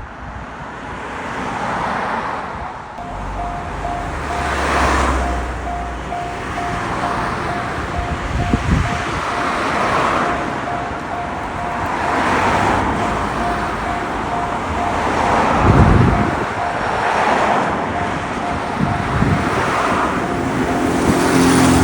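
Japanese railroad crossing warning bell sounding its rapid, steady "kan-kan" strokes from about three seconds in. Beneath it is noise that swells and fades every couple of seconds, with a few low thumps.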